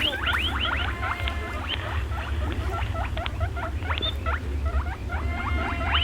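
A quick run of short, high, rising squeaks from small animals, many overlapping, over a steady low hum.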